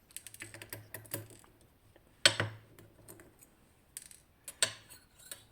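Light metallic clicks and taps of small lock parts and tools being handled while a DOM RS Sigma pin-tumbler lock is taken apart: a quick run of clicks, a sharper knock about two seconds in, and a few more clicks near the end.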